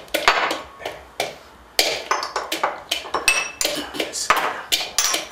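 Wooden pestle pounding in a mixing bowl, crushing dry instant noodles with seasoning: a quick, irregular run of knocks, with a few ringing clinks of tableware among them.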